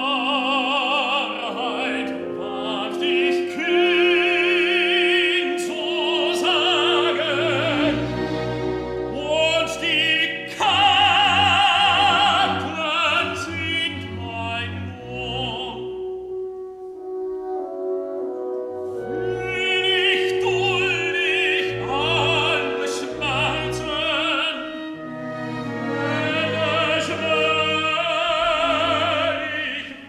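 Operatic tenor singing with wide vibrato over an orchestra. Past the middle the voice stops for a couple of seconds while the orchestra holds a single note, then the singing resumes.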